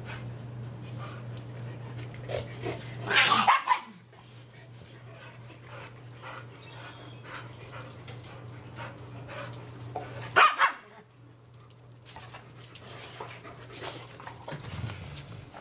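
Dogs barking during rough play between a German Shepherd and a pit bull: two short, loud outbursts, one about three seconds in and one about ten and a half seconds in, with faint small knocks and shuffling in between.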